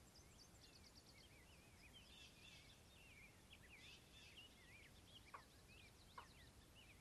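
Faint background birdsong: several small birds chirping and twittering in quick, wavering notes. Two short, louder sounds come about five and six seconds in.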